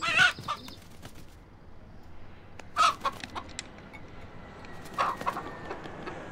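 A white broiler rooster flapping its wings at the start, followed by two more short, sudden bursts about three and five seconds in.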